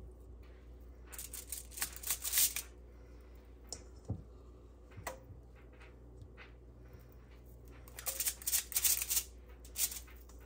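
Kitchen handling noises while making sausage balls: two bursts of quick rustling and scraping, about a second in and again near the end, with a couple of single light knocks between them.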